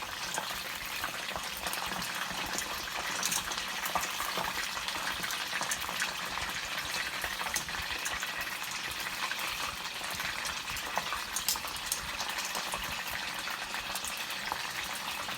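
Chicken lollipops in a cornflour batter deep-frying in hot oil: a steady sizzle with many small crackles and pops.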